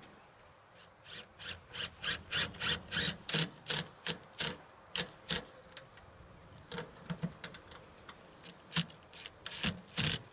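Hand ratchet clicking in short runs as a socket on an extension bar turns a bracket bolt down onto an aluminium canopy's roof panel. The clicks start about a second in, pause briefly midway, then pick up again.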